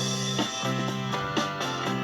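Instrumental pop music with sustained notes struck at a regular beat.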